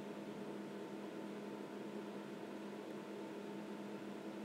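Faint steady electrical hum over a light hiss: room tone with no other events.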